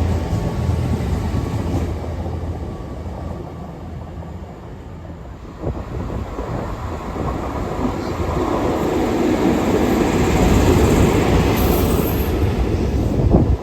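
Train running on the line: a low engine drone fades over the first few seconds. After a sudden change about six seconds in, a train's running noise builds to its loudest near the end.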